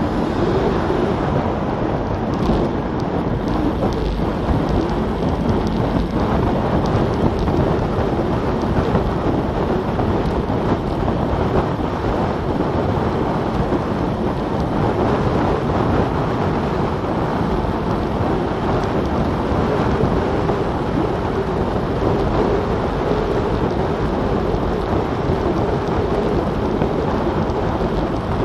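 Wind buffeting an action camera's microphone on a bicycle descending at about 30–36 mph: a steady, loud low rumble with hiss, with no let-up.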